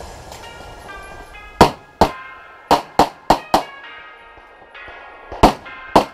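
Pistol shots fired in quick strings: a pair, then four rapid shots, then two more near the end. Each is a sharp crack with a short echo.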